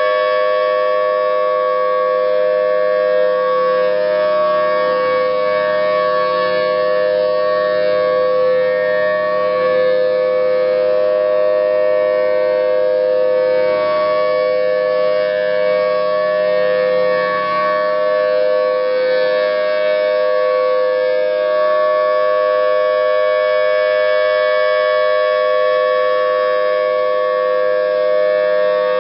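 Federal Signal Thunderbolt 1000T dual-tone outdoor warning siren sounding a steady alert: two loud, steady tones a chord apart, held without rising or falling in pitch. The sound swells and fades every few seconds as the rotating siren head sweeps past.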